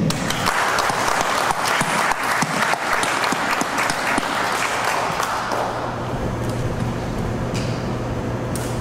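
Audience applauding, dense at first and thinning out after about five seconds, with a steady low hum underneath near the end.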